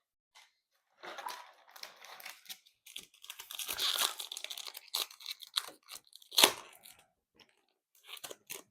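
Plastic-foil trading card pack wrapper being torn open and crinkled, in a run of irregular crackles with one sharp, loud crackle about six and a half seconds in.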